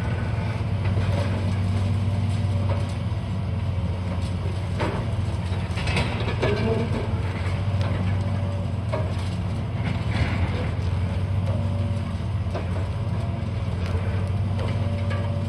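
Heavy demolition machinery's diesel engine running steadily, with a few scattered knocks and crunches of debris being broken, around five, six and ten seconds in.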